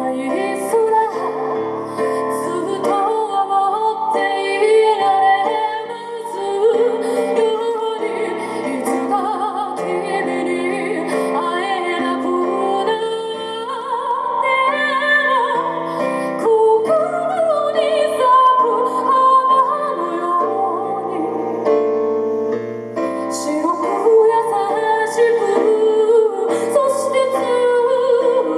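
A woman singing a song into a microphone while accompanying herself on an electric keyboard, amplified through a PA.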